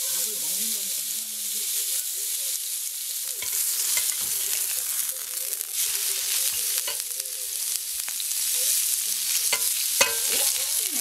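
Thin slices of hanwoo beef sirloin sizzling steadily on a hot ribbed grill pan. Metal tongs click against the pan a few times near the end as the meat is turned.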